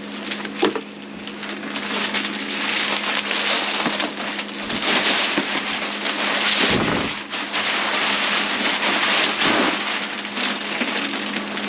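Clear plastic wrap crinkling and rustling as it is pulled off a rolled, compressed foam mattress and bunched up by hand.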